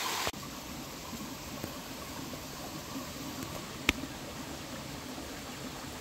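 Small mountain waterfall splashing over rocks, cutting off abruptly a third of a second in to a quieter, steady rush of shallow stream water. A single sharp click sounds about four seconds in.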